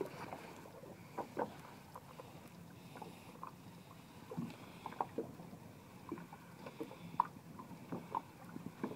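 Small waves lapping against the hull of a small open boat, heard as faint, irregular little slaps and knocks.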